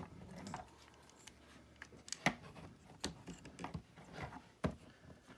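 Scattered clicks and light knocks of a small plastic action figure being handled and moved, with a sharper knock a couple of seconds in and another near the end.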